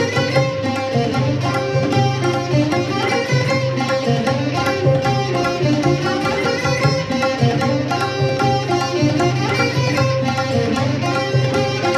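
Live Indian-classical fusion instrumental: plucked sarod and electric guitar with keyboard, over a steady drone and a pulsing bass line, in a raga-based piece moving in sevens and eights.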